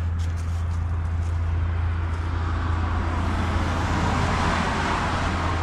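A car passing on the road: its tyre and engine noise swells to a peak about four to five seconds in and then eases, over a steady low rumble.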